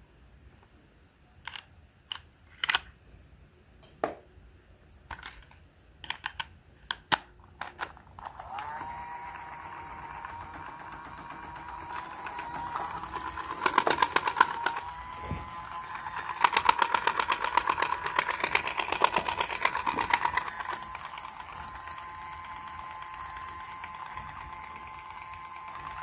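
Battery-powered toy sewing machine: a few sharp plastic clicks as it is handled, then about eight seconds in its small motor starts with a steady whine and runs on, and the needle clatters rapidly in two stretches, the longer one about four seconds.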